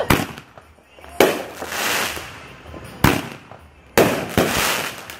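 Fireworks going off: four sharp bangs, the second and last each followed by about a second of crackling noise.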